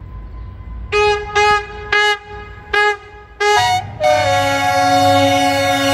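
Henschel diesel locomotive's horn sounding five short toots, then a long, lower-pitched blast from about four seconds in, over the low rumble of the running locomotive.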